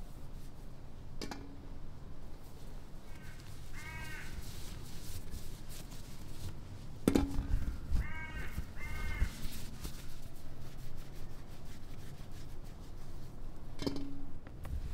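A crow cawing twice, then twice more a few seconds later. In between come three sharp knocks, each with a brief metallic ring, as lemons are dropped into a metal bowl.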